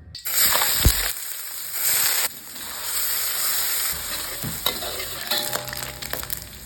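Food frying in hot oil in a pan, sizzling steadily while a utensil stirs it, with scattered clicks and scrapes and a knock about a second in.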